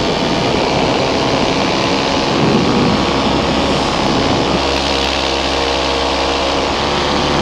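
Paramotor engine and propeller running steadily in flight, with rushing air around them. The engine note wavers a few seconds in, then settles to a steady pitch.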